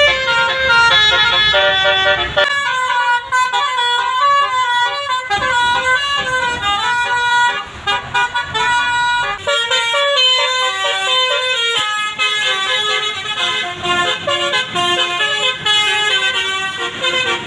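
Basuri multi-note musical air horn ('telolet') on a bus or truck, playing a fast tune of stepped notes with several horn tones sounding together. A low rumble lies under the first couple of seconds, and the horn cuts off abruptly at the very end.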